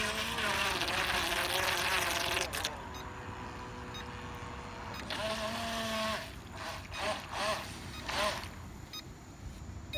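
Toy RC speed boat's electric motor whining as it runs on the water, a long burst in the first few seconds, then several shorter bursts with wavering pitch as the throttle is opened and eased. The boat's battery is running low.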